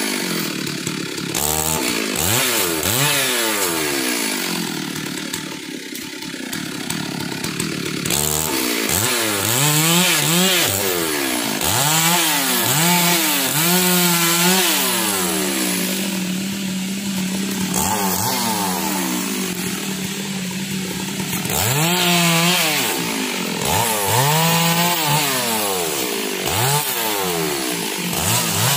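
Stihl two-stroke chainsaw cutting through the limbs and trunk of a felled tree. The engine is revved up and falls back again and again, its pitch rising and dropping with each cut.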